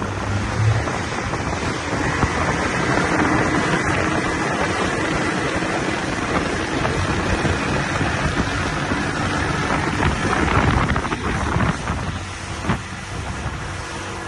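30 hp Yamaha outboard motor running steadily with the boat under way, with wind buffeting the microphone. It gets slightly quieter near the end.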